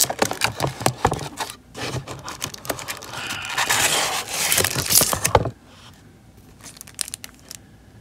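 Hands scraping and rustling stiff cardstock sheets against the inside of a cardboard box while lifting them out, with many small clicks and knocks; the handling stops about five and a half seconds in, leaving only a few faint ticks.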